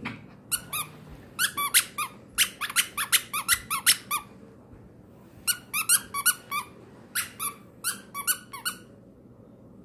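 A squeaky dog toy squeaked again and again in two quick runs of about three or four squeaks a second, with a short pause between them.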